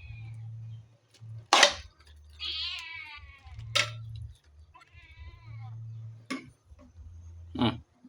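A hungry cat meowing twice in long, drawn-out meows, with four sharp knocks between the meows; the first knock, about one and a half seconds in, is the loudest.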